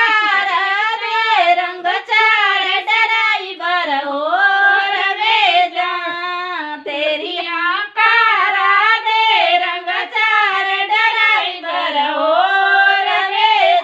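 Women singing a traditional wedding mangal geet together without instruments, a high melody rising and falling in phrases with short breaks between them.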